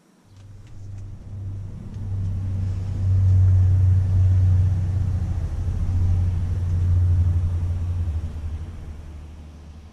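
A loud low rumble that starts suddenly, swells to its loudest in the middle and fades away near the end.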